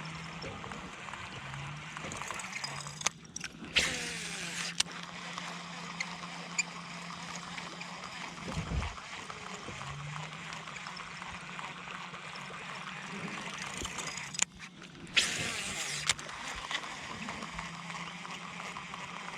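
Buzzbait fishing from a bass boat: a low electric trolling-motor hum comes and goes, with a constant churning of water. Twice, about 3 and 14.5 seconds in, there is a sudden break followed by a burst of splashy noise as the buzzbait is cast and lands, then sputters back across the surface.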